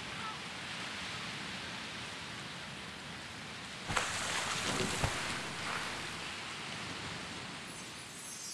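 Sea waves: a steady rushing wash that swells louder about four seconds in, with two sharp knocks about a second apart. Near the end a faint, high glittering shimmer begins.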